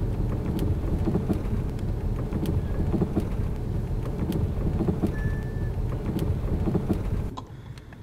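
Steering rack knocking inside a car's cabin while driving: irregular dull knocks and rattles over the low road rumble, which is most likely the sign of a worn steering rack, from a worn tie-rod joint or a worn bushing that the rack slides in. It stops abruptly near the end.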